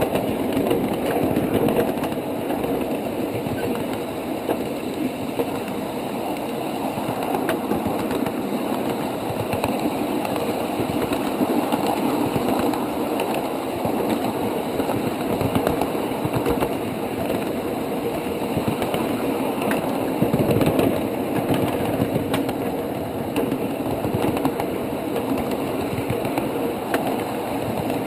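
Ride-on miniature railway train running along the track: a steady rumble of the wheels and running gear on the rails, with occasional faint clicks.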